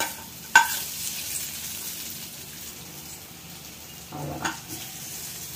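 A metal ladle clinks once against a stainless-steel pan about half a second in. Then hot oil from a tempering of fried onions, cashews and curry leaves sizzles steadily as it is tipped onto cooked mutton.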